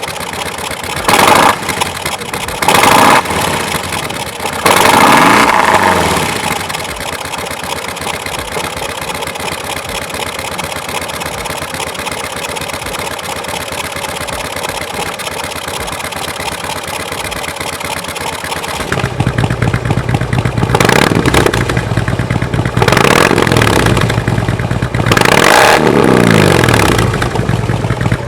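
Harley-Davidson Touring motorcycle's V-twin engine through KessTech ESM2 slip-on mufflers, idling with throttle blips. It revs three times in the first six seconds, then idles steadily. About nineteen seconds in the exhaust note turns deeper and fuller, and three more revs follow.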